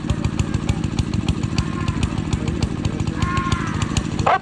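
A motor vehicle's engine running steadily at close range, with a fast, even low pulsing.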